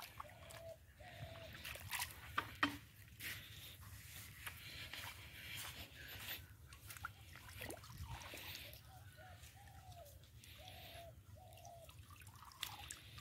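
Water dripping and trickling off a cast net and its wet rope as the net is hauled in by hand through a shallow pond, with small splashes and drips throughout.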